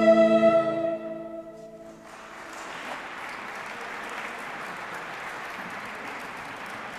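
A school orchestra's final held chord, steady and sustained, dies away within the first two seconds, followed by steady applause and clapping from the players.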